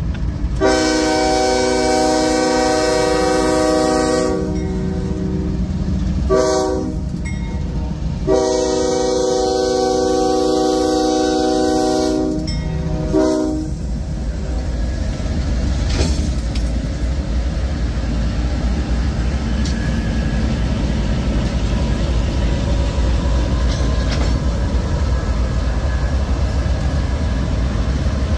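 CSX diesel locomotive air horn blowing for the grade crossing in four blasts: long, short, long, short, ending about 13 seconds in. Then the locomotives' diesel engines and the wheels on the rails make a steady low rumble as the lead units pass close by.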